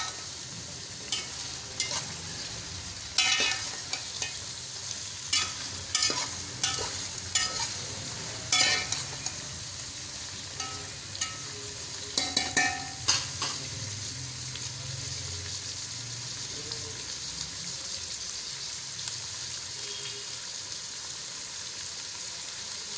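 Sliced onions sizzling in hot oil in a metal pot, with a metal spoon scraping and clinking against the pot as they are stirred over roughly the first half. After that the sizzling goes on steadily on its own as the onions fry toward light brown.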